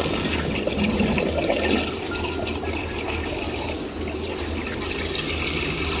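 Water gushing from a pipe into a concrete tank, splashing and churning the grain soaking in it: a steady rushing splash.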